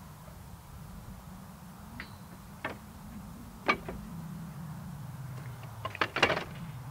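A low, steady hum that wavers slightly in pitch, with a few sharp knocks: single ones about two, two and a half and three and a half seconds in, then a louder cluster of knocks about six seconds in.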